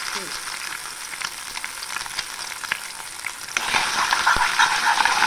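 Food sizzling and crackling as it fries in hot oil in a pan, getting clearly louder about three and a half seconds in.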